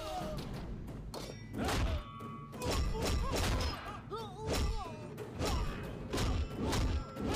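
Fight-scene sound effects: heavy punch and body-impact thuds landing about once a second, with sharper hits in between, over a film background score with a wavering melodic line.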